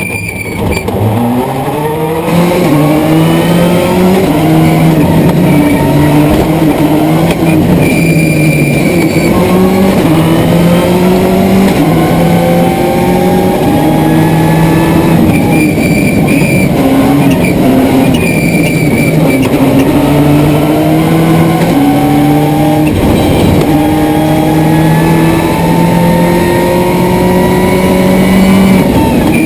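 Subaru Impreza S11 WRC's turbocharged flat-four rally engine driven hard, its note climbing and then falling back again and again as it shifts through the gears.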